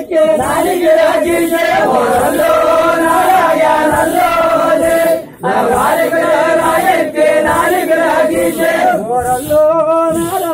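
A group of voices singing a tappeta gullu folk chant in unison, holding long notes over a steady high rhythmic beat about twice a second, with a brief break about five seconds in.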